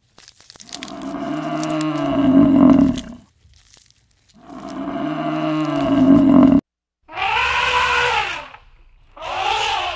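Two long, low bellows from African buffalo, each about three seconds. After a sudden break, an elephant calf gives two shorter, higher calls that bend up and down in pitch.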